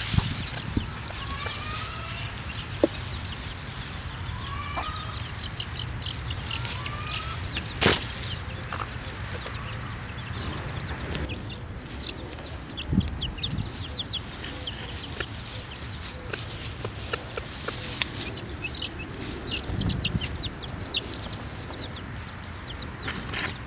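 Chickens foraging: clucking, with many short high peeps from baby chicks, thickest in the second half. A steady low hum runs underneath, and a single sharp click comes about a third of the way in.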